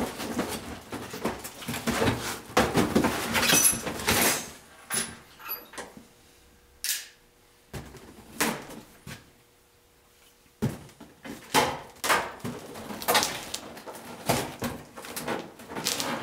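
Cardboard box being opened and handled: the end flap and tape worked loose, cardboard rubbing and scraping, and irregular knocks and clicks. A quiet pause comes in the middle, then the box is lifted and tipped with more scraping and knocking.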